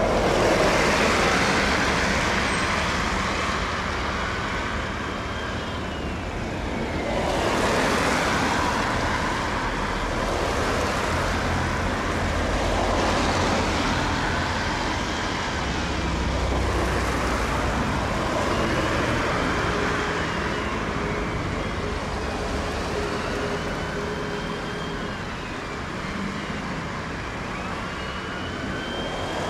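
Steady rumble of a diesel-hauled train and nearby traffic, swelling louder a few times as vehicles pass, with a few faint high squeals that slide in pitch.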